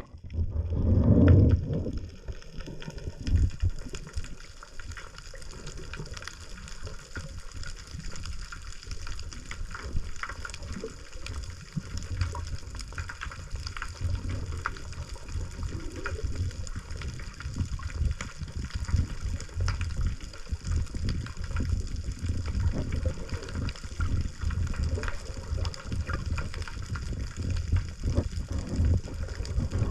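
Sea waves washing and surging continuously, with a louder low surge about a second in.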